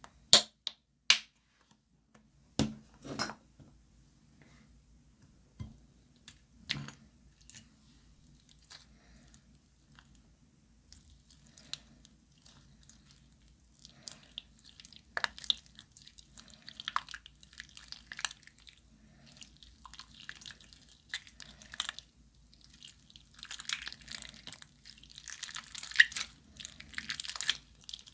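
Glossy slime being worked by hand, giving wet, sticky crackles and pops that grow denser near the end. A few sharp clicks come in the first seconds.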